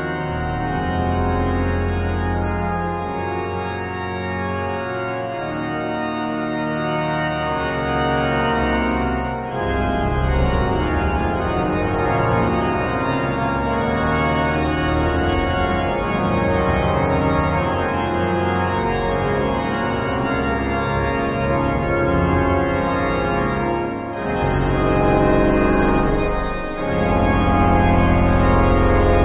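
Cathedral pipe organ playing a solo piece: dense sustained chords over a deep pedal bass. The music breaks briefly between phrases about nine and twenty-four seconds in and grows louder near the end.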